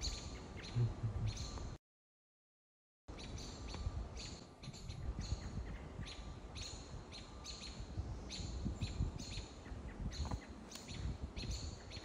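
Small birds chirping, short high chirps about twice a second, over a low rumble. The sound cuts out completely for about a second early on, then the chirping resumes.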